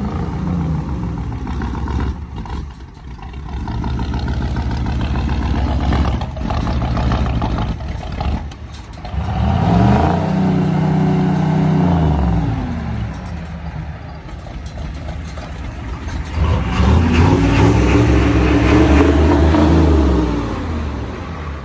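Pickup truck's diesel engine with a vertical stack exhaust, running unevenly at low revs, then revved hard twice, about ten seconds in and again near the end. Each rev climbs, holds for a few seconds and drops back.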